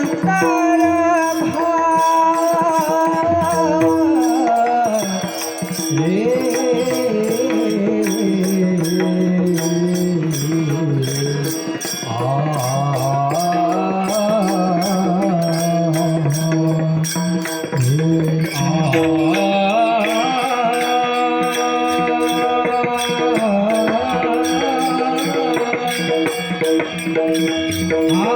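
Male voice singing a Marathi devotional abhang, drawing out one word into long, slowly bending held notes over a steady drone with light tabla accompaniment.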